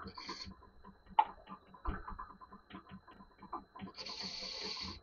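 Small metal lathe running while turning a silver steel screw blank, with rapid light ticking throughout and a faint steady high whine. A brief hiss rises about four seconds in.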